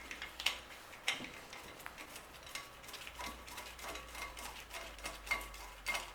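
Irregular light metallic clinks and taps from brake parts and hand tools being handled, a few of them sharper with a brief ring.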